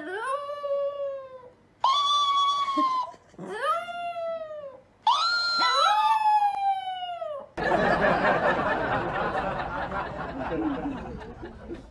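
Chihuahua howling with its head raised: four drawn-out howls, each rising and then sliding down in pitch, with a second, higher howl overlapping the last. About seven and a half seconds in the howling cuts off and a steady rushing noise takes over.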